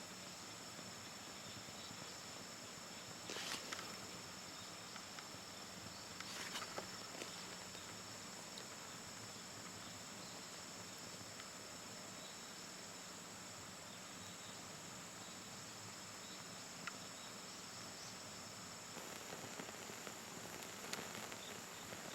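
Insects trilling steadily at two high pitches, with a few faint snaps and crackles about three and six seconds in.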